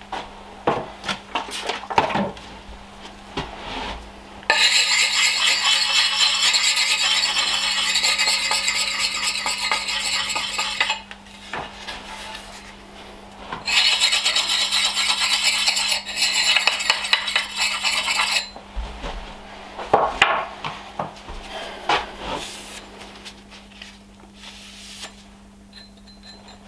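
Double-sided sharpening stone (axe puck) stroked quickly along the edge of a Rinaldi Calabria axe, honing a micro bevel: two long stretches of steady scraping, the first about six seconds and the second about five, with scattered clicks and taps of handling between and after them.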